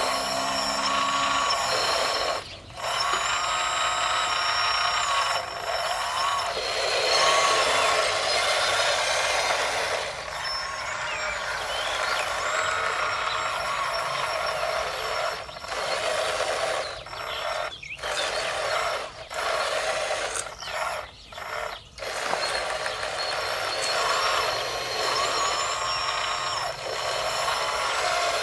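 Small electric motors and hydraulic pumps of radio-controlled model construction machines whining as they work, their pitch rising and falling, with a few brief breaks.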